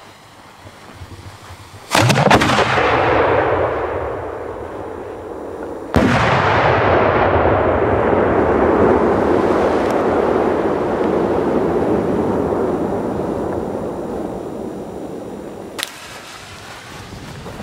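A 200 mm (8-inch) aerial firework shell fired from a mortar tube: about two seconds in the lift charge launches it with a sharp bang, and some four seconds later the shell bursts with a second bang that rolls and echoes, fading slowly over about ten seconds.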